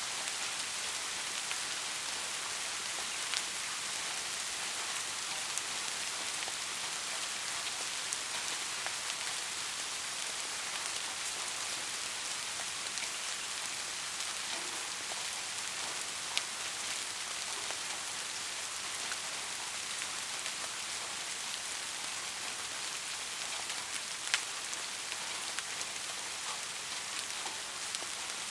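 Steady rain falling, an even hiss with a few sharp, louder drop hits now and then.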